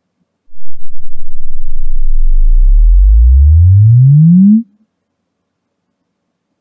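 Home theater subwoofers (SVS PB-3000s with Definitive Technology BP-8080ST towers) playing a REW logarithmic sine sweep for a room bass measurement: a loud pure tone rising steadily from deep bass to about 120 Hz over about four seconds, then cutting off suddenly.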